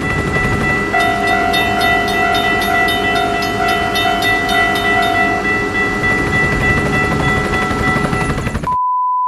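Train sound effect: a train running by with a loud, steady rumble and a long held horn note from about one to five seconds in. The noise cuts off suddenly near the end, and a short, pure beep sounds.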